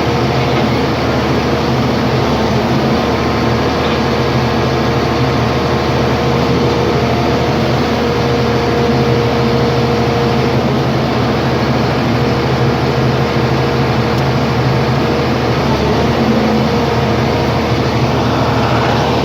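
Lefort hydraulic scrap-metal shear running steadily after repair: a continuous machine hum at an even pitch, with no distinct impacts.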